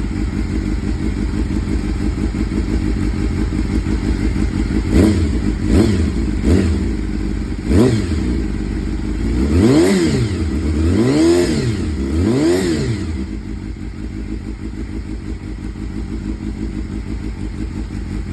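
Honda CBR250RR (MC22) 250 cc inline-four idling through a universal aftermarket silencer with its baffle fitted. About five seconds in it is blipped four times in quick short revs, then revved up and down three times in longer swells, and it settles back to idle.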